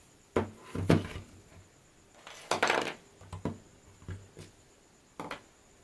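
Speaker cabinet being handled and turned over on a workbench: a handful of light knocks and clunks, with a longer scraping clatter about two and a half seconds in.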